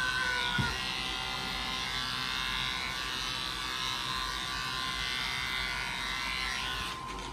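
Corded electric pet clippers running with a steady buzz as they shave a Persian cat's fur; the buzz drops away near the end.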